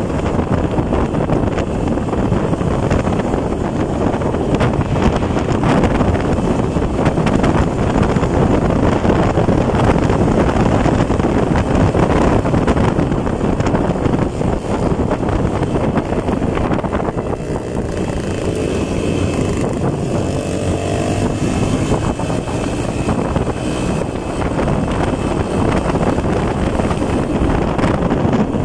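Motorcycle being ridden along a road, its engine running under a loud rush of wind on the microphone. A little past halfway the wind eases slightly and a steadier engine note comes through.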